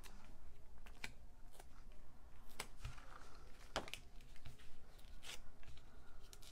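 Faint handling of small cardstock pieces on a craft table: scattered light clicks and rustles, about one a second, as paper present pieces are popped up onto a card.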